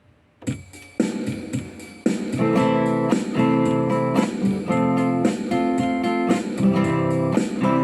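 Guitar strumming chords in a steady rhythm, the start of a song. A few soft strums come in about half a second in, then fuller strums settle into a steady beat from about two seconds in.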